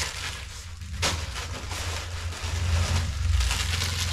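Plastic packets of sweets crinkling as they are handled and shaken, with a sharp snap about a second in.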